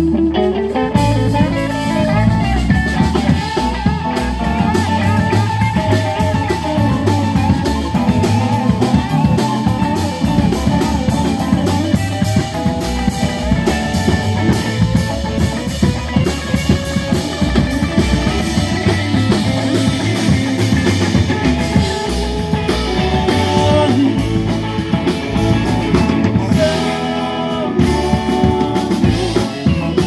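Live rock band playing: electric guitars over a drum kit, loud and continuous.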